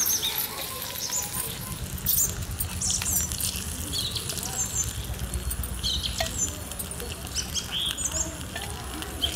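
Whole boiled eggs frying in a little oil in a miniature clay pot, a steady crackling sizzle, with the small fire under the pot flickering and crackling. The spoon gives a few light clicks against the pot.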